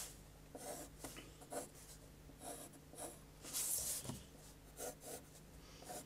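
Graphite pencil drawing lines on paper: faint scratching in several short, separate strokes, the longest about three and a half seconds in.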